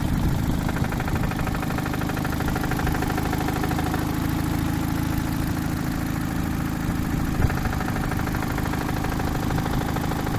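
Chevrolet Cruze engine idling steadily, with a fast light ticking that comes and goes and one brief knock about seven and a half seconds in.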